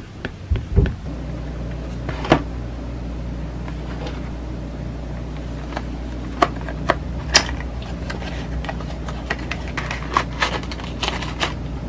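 A small cardboard product box being handled and its end flap worked open by hand: scattered light taps, scrapes and clicks of the card, the sharpest about two seconds in and about seven seconds in, over a steady low hum.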